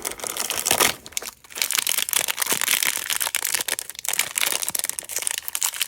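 Toy packaging being torn and crinkled open by hand: a dense, irregular crackle of cardboard and plastic.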